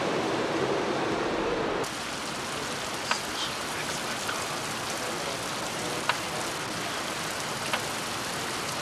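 Heavy rain falling in a steady hiss during a thunderstorm, with a few sharp taps of drops striking close by. It follows a steady indoor hum with faint tones as a monorail pulls into the station, which cuts off suddenly about two seconds in.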